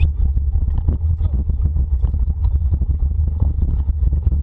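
Wind buffeting the microphone and the rattle of a wheeled dog-team rig rolling fast over a rough dirt trail: a steady low rumble under constant irregular clatter.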